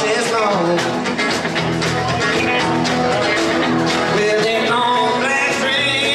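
Live rock-and-roll trio of electric guitar, acoustic guitar and drums playing a rockabilly number with no vocal line. The electric guitar plays lead lines with bent notes over a steady drum beat.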